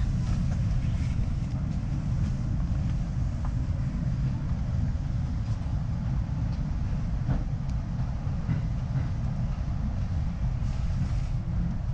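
R62A subway car on the 7 line running, heard from inside the car at the front window: a steady low rumble with a few faint clicks.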